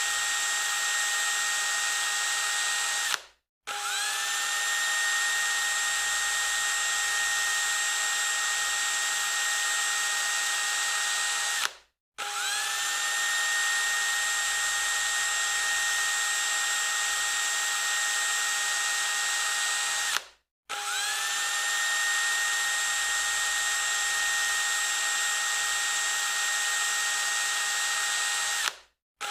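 Electric drill running at full speed with a steady high whine. It cuts out three times, and each time it starts again with a quick rising spin-up back to speed.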